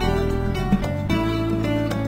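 Background music with plucked string notes over a steady low bass.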